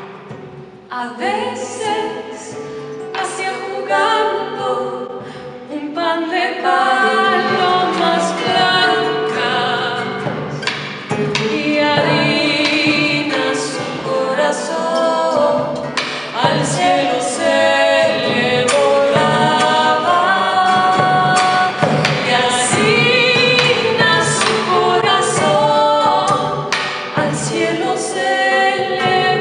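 A woman singing a melody into a microphone with vibrato, accompanied by plucked classical guitar. The voice comes in about a second in over the guitar.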